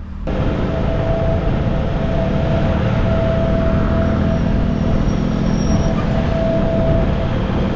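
CFMoto NK 250 motorcycle being ridden, its engine running steadily under heavy wind and road noise on the microphone; the sound comes in abruptly just after the start.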